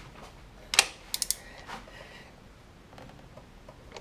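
Metallic clicks and creaks of a long-handled wrench turning a thread tap in the stripped spark plug hole of a VAZ 2109 cylinder head, recutting the thread. A few sharp clicks come about a second in, with a louder cluster at the end.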